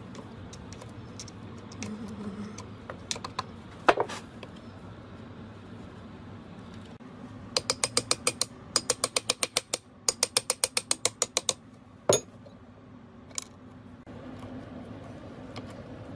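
Metal parts of an old cast-iron lathe gearbox being handled and turned by hand: a few sharp metal knocks, then two runs of rapid, evenly spaced ratchet-like clicks at about six a second, and one more loud knock.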